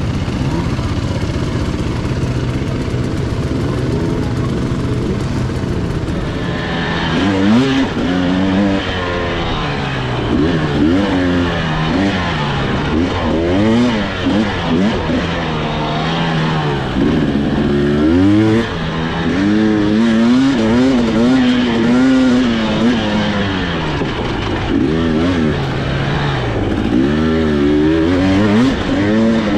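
Two-stroke dirt bike engine, a Husqvarna TE300i, running steadily at low revs, then from about six seconds in revving up and down over and over as the bike is ridden along the trail.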